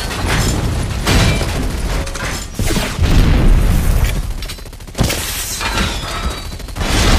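Action-film battle sound effects: repeated heavy booms and explosions mixed with bursts of gunfire, dense and loud, with a quieter stretch shortly before a sudden hit about five seconds in.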